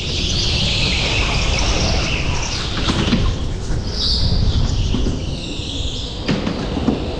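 A go-kart being driven on the track, heard from the kart itself: a steady low rumble of engine and wind buffeting, with a high hissing that swells and fades, and a single sharp knock about six seconds in.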